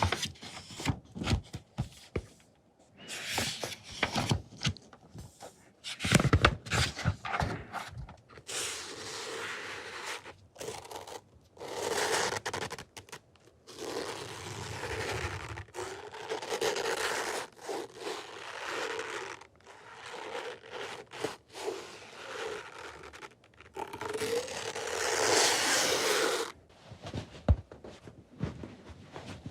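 Close-miked ASMR trigger sounds. Quick irregular taps and crackles come first, then long strokes of scratching or scraping that stop and start, the loudest near the end.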